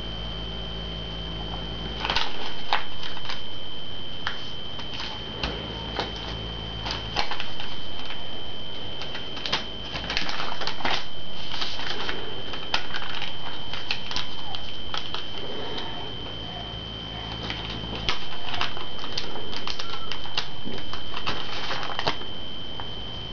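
Paper crackling and clicking as hands crease and fold a sheet of origami paper, with irregular sharp crinkles, over a steady high-pitched whine.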